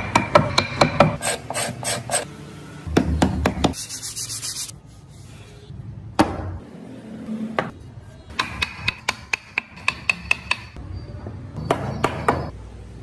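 Hand chisel working wood: scraping and cutting strokes, with runs of quick, sharp taps, about four or five a second, in the second half.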